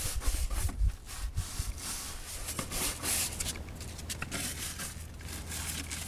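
A stiff hand brush scrubbing a white plastic chair with soapy water, in a run of quick rasping strokes, stronger in the first couple of seconds.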